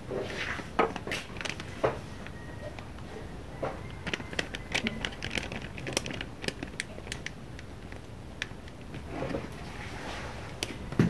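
Packet of crispy-frying flour rustling and crinkling as the flour is poured out into a ceramic bowl, with scattered light ticks and taps.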